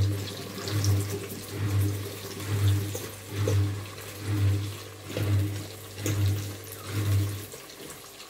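Sliced onions sizzling in hot oil in a large pot as they are stirred with a fork, with light scrapes of the fork on the pot. Beneath it a low hum pulses about once a second, then stops near the end.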